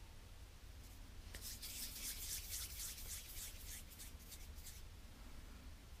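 Hands rolling a small lump of soft clay into a marble-sized ball between the palms: a faint rubbing, busiest in the first half.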